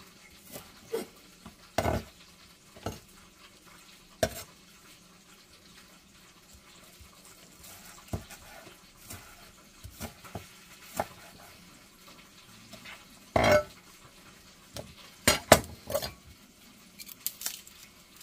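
Chef's knife chopping red onion on a wooden cutting board: scattered single knocks of the blade on the board, irregularly spaced, with a louder group of knocks between about thirteen and sixteen seconds in.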